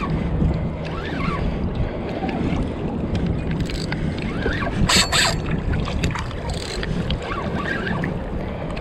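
Wind buffeting the microphone over water lapping against a kayak, a steady rushing noise, with one short sharp noise about five seconds in.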